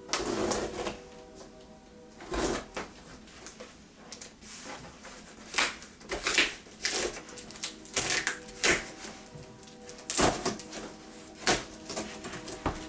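A large cardboard shipping box being opened by hand: irregular sharp rustles, scrapes and tearing of tape and cardboard, about a dozen of them. Quiet background music with steady held notes plays underneath.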